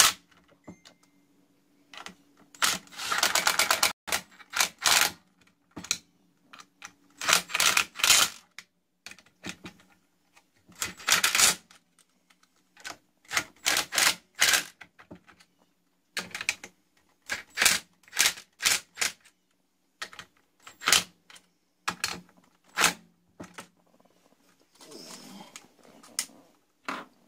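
Old Dressmaker electric sewing machine run in short bursts, its needle and feed mechanism clattering rapidly, with a low hum underneath. This is the machine running again after a loose screw was fixed.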